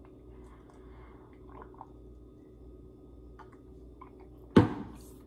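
Faint sips and swallows from a green plastic cup, then the cup set down with a single loud knock about four and a half seconds in, the loudest sound.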